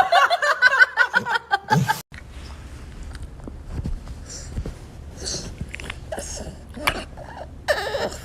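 A person laughing in quick repeated bursts for about two seconds. After a sudden cut come quieter scattered small clicks and rustles, with a short voice-like burst near the end.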